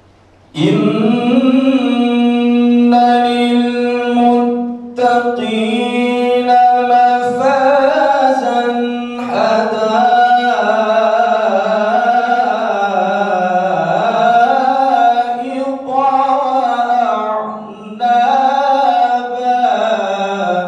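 A man reciting the Quran in the melodic tilawah style through a microphone, starting about half a second in. He sings long, held, ornamented phrases, pausing briefly for breath between them.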